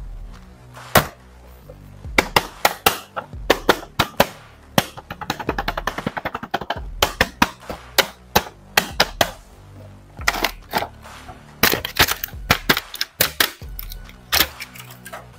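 Cardboard toy box and clear plastic bag crackling and crinkling as an action figure is unpacked by hand: many sharp, irregular crackles, with a quick rattling run about five seconds in. Background music runs underneath.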